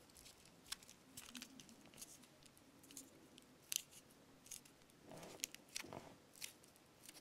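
Faint, scattered crinkling and crackling of aluminium foil as it is squeezed and pressed around a pen by hand.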